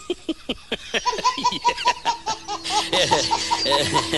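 Laughter in a quick run of short repeated bursts, a dubbed-in laugh track.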